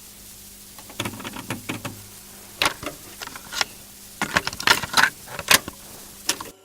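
Irregular clicks and taps, some sharp and loud, coming thicker in the second half, over a faint steady hum.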